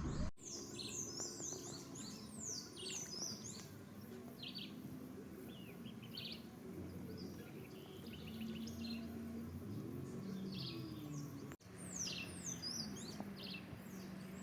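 Several birds chirping in clusters of short, quick, downward-sliding notes over a faint outdoor background.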